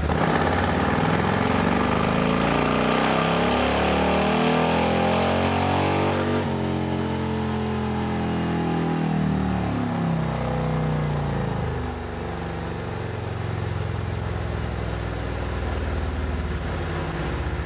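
Harley-Davidson CVO Road Glide ST's 121-cubic-inch V-twin doing a fifth-gear pull on a chassis dyno: the revs climb steadily for about six seconds, then the throttle shuts and the revs fall away as the bike coasts down, settling to a lower steady running about twelve seconds in.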